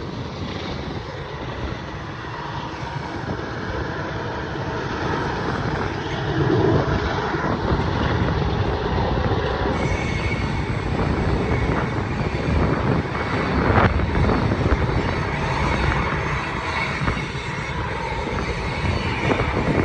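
Diesel-hauled manifest freight train passing, a steady rolling rumble that grows louder about six seconds in, with wind on the microphone.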